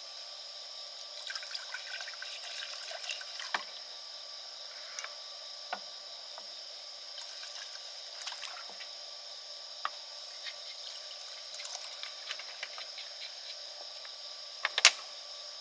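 Liquid trickling and pouring, with scattered light clicks and clinks of handling, and one sharper click near the end.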